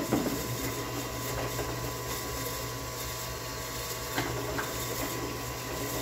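Benchtop drill press running steadily while a 3/16-inch hole is drilled through a small metal pivot bracket, its motor giving a constant hum. A sharp click right at the start and a light tick about four seconds in.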